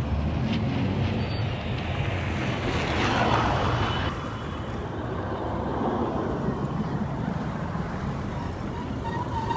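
Busy road traffic of motorcycles and vans: a steady engine and road rumble that swells about three seconds in as something passes close by. A steady high tone starts just before the end.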